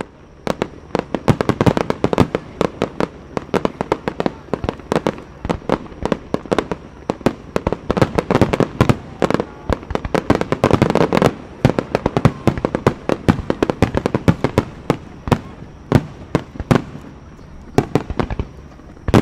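Fireworks display: aerial shells bursting in rapid succession, several sharp bangs a second. The bangs come thickest about ten seconds in and ease off briefly near the end.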